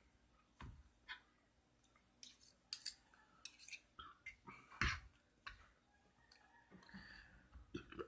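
Faint eating sounds: scattered short clicks and smacks, the loudest a little before five seconds in.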